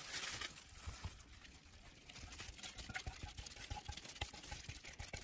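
Faint wet squishing and scattered small clicks of a plastic-gloved hand rubbing thick sauce marinade over a raw whole chicken.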